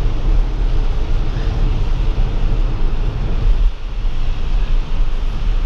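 Steady road noise inside an electric Tesla's cabin: tyres hissing on wet highway pavement over a low rumble, with no engine sound. The rumble dips briefly a little under four seconds in.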